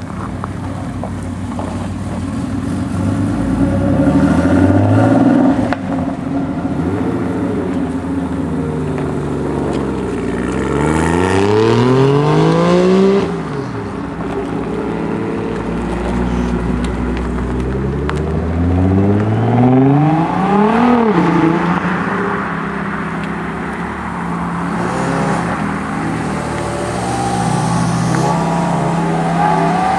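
Several sports cars accelerating hard one after another, each engine's pitch climbing through a gear and dropping at the upshift. A TVR comes first, then a Mazda RX-7's twin-rotor rotary, then a Ferrari 360 Spider's V8.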